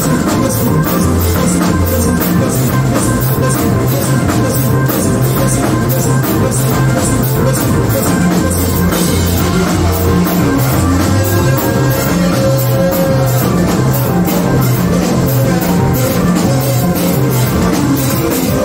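Live church band music: a drum kit playing a steady beat over a bass line, loud and unbroken.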